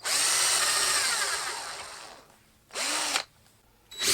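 Power drill boring a hole in wood with a Forstner bit: one run of about two seconds that winds down with falling pitch, a brief trigger blip about three seconds in, then the drill starting up loudly again near the end.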